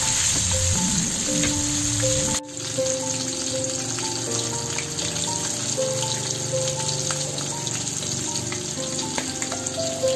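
Tilapia frying in hot oil in a steel wok: a steady sizzle, with light background music playing over it. The sound briefly drops out about two and a half seconds in.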